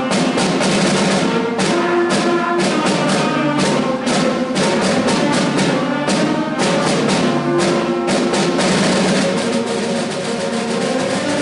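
Orchestral music with brass and drums: held brass and ensemble notes over frequent drum strikes.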